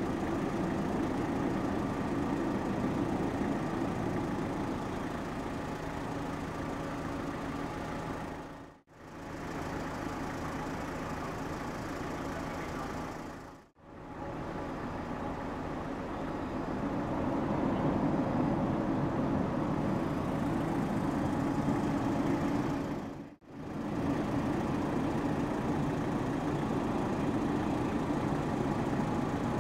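Steady low drone of the ferry Suzuran's engines and machinery as she berths, with a hum of low tones under a rushing haze. It swells a little past the middle and fades out and back in briefly three times.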